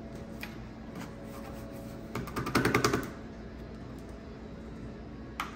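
Quick burst of rapid tapping, about ten taps a second for under a second, as a capuchin monkey jabs a ballpoint pen onto paper on a wooden table; a single sharp tap near the end.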